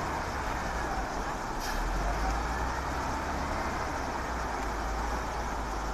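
Diesel engines of a wheel loader and a dump truck running at a distance, a steady low rumble.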